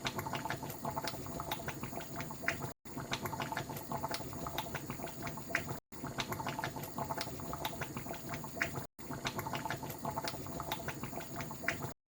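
A pot bubbling on the boil, a steady crackle of small pops. It is cut into four stretches of about three seconds, each separated by a brief silence.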